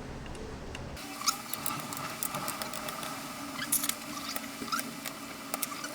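Irregular small clicks, taps and scratches of laptop parts being handled as the laptop is stripped down to remove the motherboard. The clicks come from about a second in.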